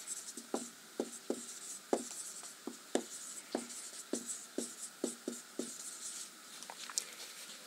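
Marker writing on a whiteboard: short scratchy strokes with light taps, about two a second.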